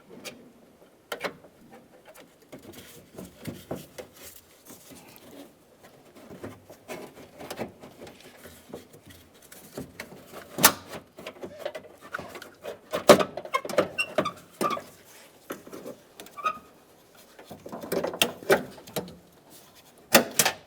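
Irregular clicks, knocks and rattles as a door latch assembly is worked into position inside a Ford F-150's door, with a few sharper knocks in the second half.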